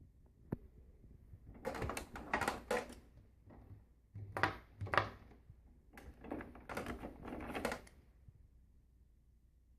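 A sharp click, then three bouts of clattering and rubbing from the plastic parts of a Eureka The Boss Plus upright vacuum being handled, with its motor off.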